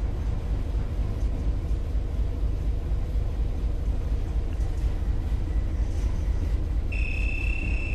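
Steady low rumble of a cargo ship's engine and hull vibration, heard from the bridge. Near the end a high, steady electronic beep starts.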